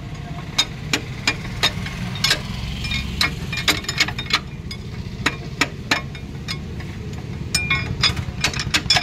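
Steel tools clinking and tapping against the gears inside an opened Farmtrac 60 tractor transmission housing, irregular sharp metallic clicks a few times a second, as the crown-wheel pinion is worked loose for removal. A steady low hum runs underneath.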